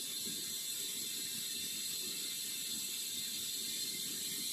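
Steady background hiss and low room noise, with no distinct events.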